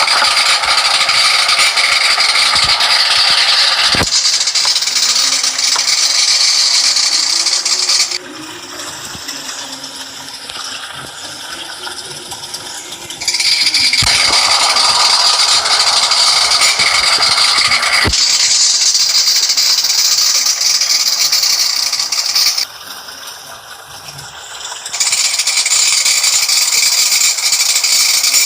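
A 12 kg washing machine in its rinse cycle: a loud, steady rushing noise that drops to a much quieter running twice, for a few seconds each time, with a few sharp clicks.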